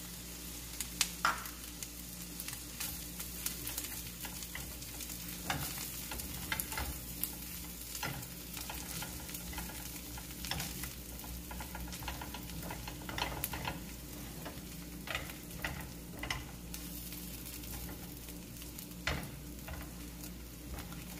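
Diced onion and pickles sizzling in a frying pan, with a silicone spatula scraping and clicking against the pan at irregular moments as they are stirred.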